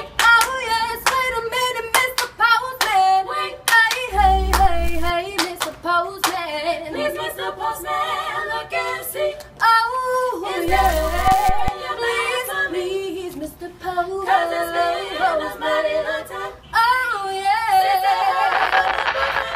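A sung jingle: voices singing a melody with hand claps, and two deep low hits about four and eleven seconds in.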